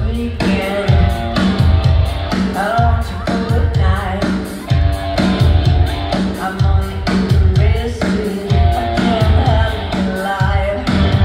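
Live pop-rock band playing loud with a heavy, regular drum beat and a woman singing over it, amplified through an arena sound system.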